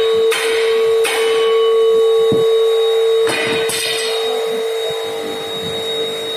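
Four ringing metallic clangs of steel being struck, two early and two close together past the middle, over a steady high-pitched hum.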